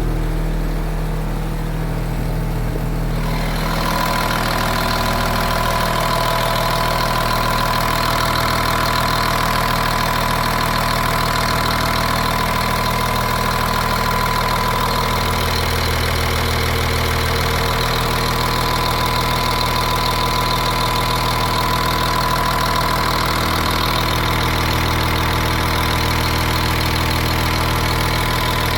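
Caterpillar 3126 inline-six diesel in a school bus idling steadily. About four seconds in, a steady higher whine and hiss join the idle and stay.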